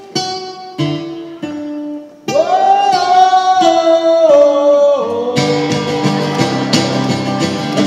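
Live acoustic guitar and male singing: a few separate chords are struck, then about two seconds in the voice comes in with one long held note, and from about five seconds on the guitar strums a steady driving rhythm under the singing.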